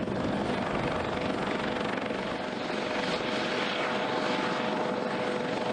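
Helicopter running steadily: turbine and rotor noise with a constant whine, no change in pitch or level.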